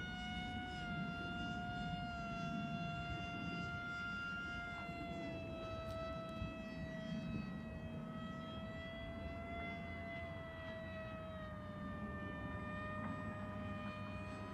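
Electric motor and pusher propeller of a 3D-printed RC ICON A5 model plane in flight, a steady high whine that eases slightly lower in pitch a couple of times, over a low rumble of wind.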